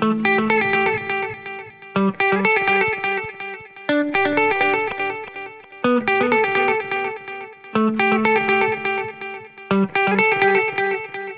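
Music: an electric guitar with effects plays a run of picked notes over a low bass note. The phrase starts again about every two seconds, each time dying away before the next.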